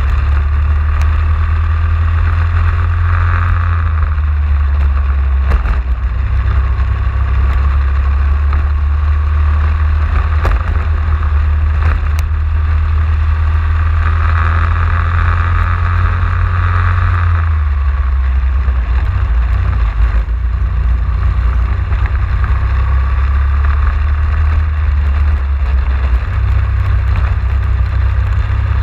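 Racing kart engine running hard, heard from a camera mounted on the kart, under a heavy low rumble. The engine note rises and falls with the throttle, loudest about halfway through, then drops briefly as the kart slows for a corner before picking up again.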